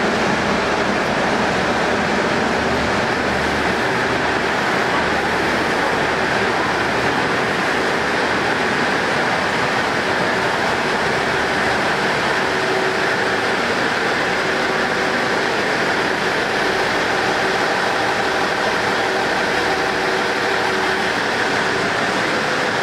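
KiHa 48 diesel railcar standing at the platform with its engine running, a loud, steady, unchanging engine noise.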